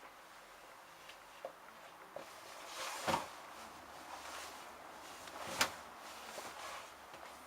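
A few knocks and clunks of things being handled: two small taps, then two louder sharp clunks about three and five and a half seconds in.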